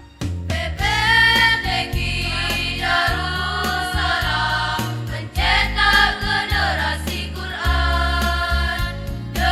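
A choir singing a march-style school anthem over instrumental accompaniment with steady bass notes; the voices come in right at the start after an instrumental passage.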